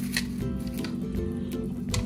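Background music with steady held notes, with light clicks and ticks scattered through it.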